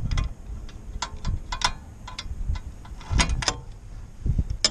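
Hand hose cutter snipping through rubber fuel line: a run of short, sharp clicks and snips in small clusters.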